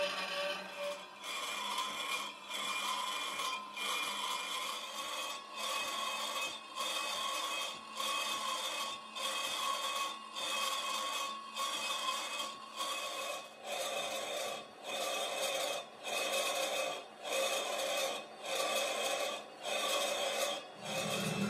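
Rhythmic back-and-forth rasping of a tool on metal, about four strokes every three seconds.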